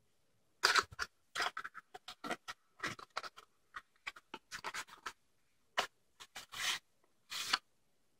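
Small cardboard box handled and slid open by hand: a run of irregular scratchy scrapes and rustles of cardboard, with a couple of longer sliding scrapes near the end as the contents come out.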